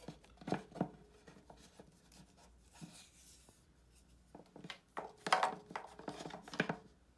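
Hands working the servo motor's cables and its steel mounting plate into place on the lathe: scattered light clicks, knocks and rubs, a few about half a second in and a busier run near the end.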